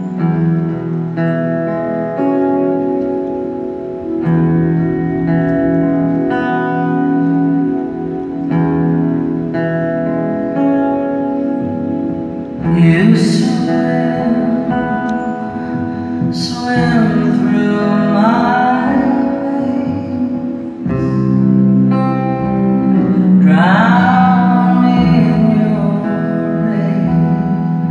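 Live band playing a slow, gentle ballad in held chords that change every couple of seconds, with a woman starting to sing about halfway in, her phrases swelling to their loudest near the end.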